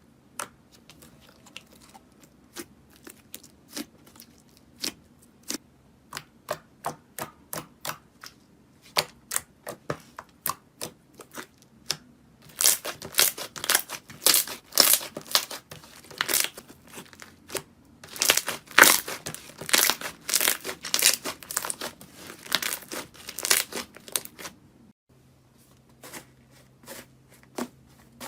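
Slime being handled, with sharp sticky pops a couple of times a second. About halfway through they give way to a dense run of crackling and crunching. Near the end it falls back to sparse pops.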